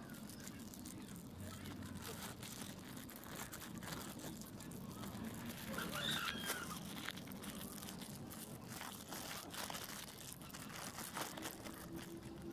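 Clear plastic bag crinkling and rustling close to the microphone as it is handled, with many small crackles throughout. A short, faint distant voice is heard about halfway through.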